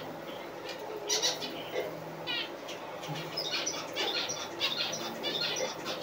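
Small aviary finches chirping: many short, high calls from about a second in, including one quick run of notes about two seconds in.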